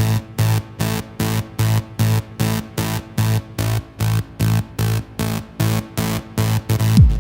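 Acid techno track: a synthesizer chord chopped into even stabs, about four a second. A kick drum comes in right at the end.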